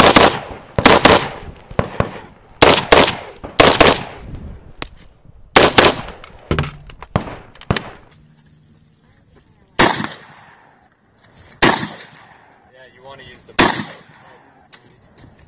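AR-15 rifle with a muzzle brake firing in competition, a sharp crack on each shot with a short ringing tail. For about the first eight seconds the shots come in quick pairs; after that come three single shots about two seconds apart.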